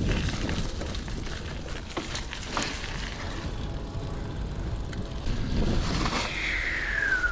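Trek Marlin 7 hardtail mountain bike riding along a dirt trail: tyre rumble, scattered sharp rattles and clicks from the bike, and wind buffeting the microphone. Near the end, a whistle glides down in pitch.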